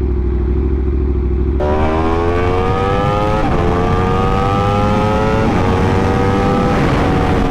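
Aprilia RSV4's V4 motorcycle engine running low and steady, then opened up about a second and a half in: its pitch climbs through each gear, with three quick upshifts as the bike accelerates.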